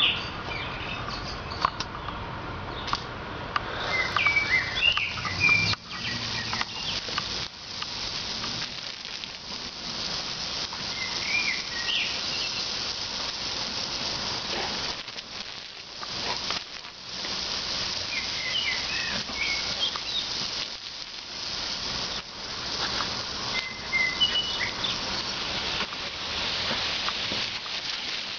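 Garden hose spraying water in a steady hiss and patter that dips briefly a few times as the stream moves. Birds chirp now and then over it.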